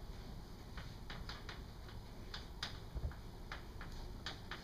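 Chalk writing on a blackboard: a string of about ten irregular short taps and clicks as letters are written.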